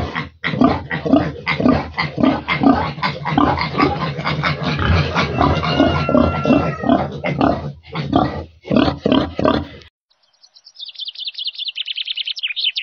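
A sow and her young piglets grunting rapidly and continuously, with a thin, higher-pitched piglet call around the middle. Then the pig sounds cut off, and a rapid high ticking sound effect plays, falling slightly in pitch.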